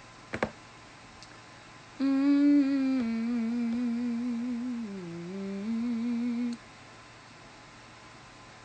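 A woman humming a short melody with her mouth closed, for about four and a half seconds: one wavering held note that steps lower, dips further about halfway through, then comes back up and stops. A small click comes just before.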